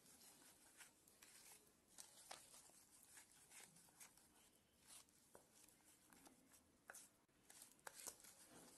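Faint, irregular soft clicks and scrapes of a spatula stirring egg into creamed butter and sugar in a glass bowl.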